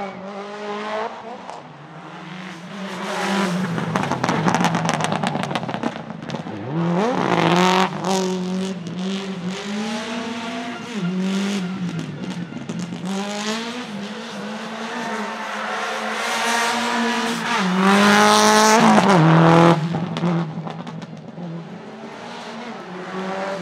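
Subaru Impreza WRX STI Spec C's turbocharged EJ20 flat-four, fitted with equal-length headers, accelerating hard through the gears. The revs climb and fall back at each shift, and it is loudest as the car passes about three-quarters of the way through.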